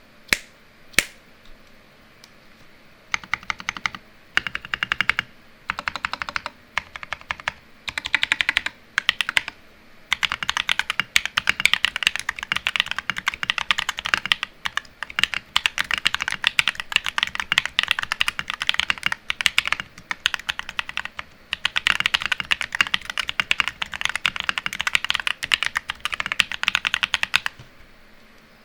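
Rakk Lam-Ang Lite mechanical keyboard with lubed Akko CS Lavender Purple switches, foam-modded case and lubed stabilizers, being typed on. It starts with a few single keystrokes and short bursts, then fast, steady typing from about ten seconds in, with a brief pause partway through.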